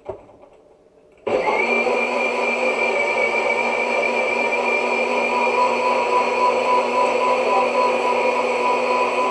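Countertop blender switched on about a second in, its motor coming up to speed and then running steadily with a high whine, mixing sodium alginate into water. A few light knocks come just before it starts.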